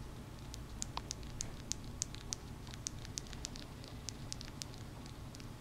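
Newborn Syrian hamster pup making tiny high clicks and chirps, irregular and several a second, over a low room hum.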